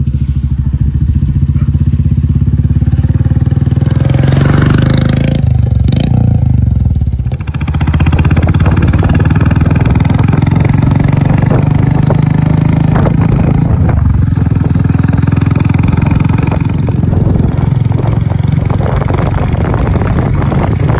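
Royal Enfield Meteor 350's single-cylinder engine running loud through an aftermarket Mini Punjab free-flow silencer. A pass-by swells about four to six seconds in, then a short dip follows and steady running close to the silencer tip takes over while the bike is ridden.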